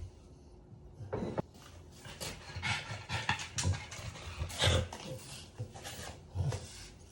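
French bulldog eating: irregular chewing and smacking sounds, some breathy.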